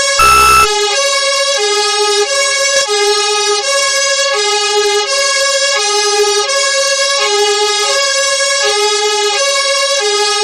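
Two-tone emergency vehicle siren alternating steadily between a low and a high note, each held for about three-quarters of a second. A short, loud, horn-like blast sounds just after the start.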